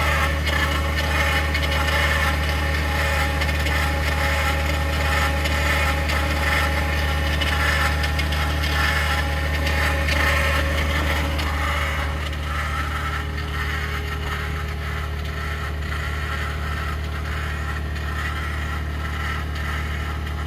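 2021 Ford F-150 PowerBoost running after a remote cold start at about minus 16 °C, with a steady low drone and a rough grinding, rasping noise over it that eases slightly about twelve seconds in. The owner calls it a cavitating or grinding noise that appears in sub-zero cold and suspects it comes from something pumping.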